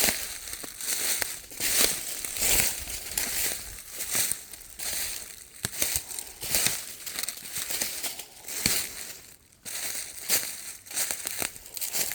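Footsteps crunching through dry leaves and twigs at a walking pace, each step a short rustling crunch, with a brief lull about nine and a half seconds in.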